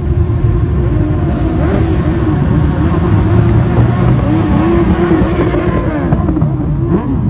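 A stream of motorcycles riding slowly past one after another, several engines running at once, overlapping, their pitch rising and falling as riders open and close the throttle.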